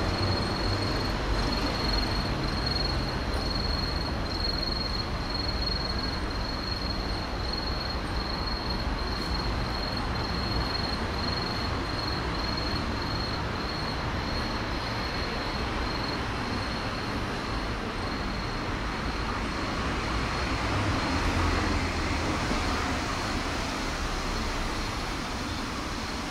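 Steady roadside traffic hum, with a car passing close about twenty seconds in. A thin, steady high-pitched whine sits over it and fades out past the middle.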